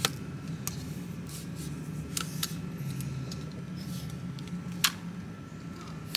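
Scattered sharp plastic clicks, about half a dozen spread unevenly, from a compact phone tripod being handled, over a steady low hum.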